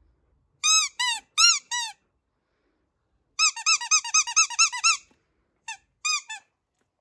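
Squeaky buffalo dog toy squeezed over and over: four squeaks, then a quick run of about ten, then three more near the end. Each squeak bends up in pitch and back down.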